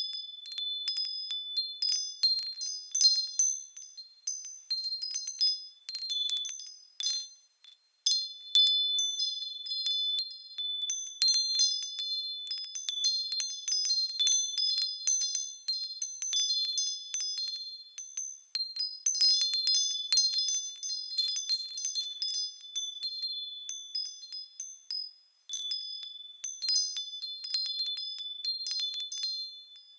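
Small high-pitched metal chimes tinkling in quick, irregular strikes, a wind-chime-like Christmas sparkle effect, with brief breaks about eight seconds in and near twenty-five seconds.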